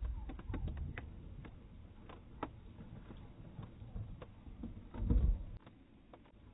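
Wind rumbling on the microphone in gusts, strongest just after the start and again about five seconds in, with scattered light taps and ticks.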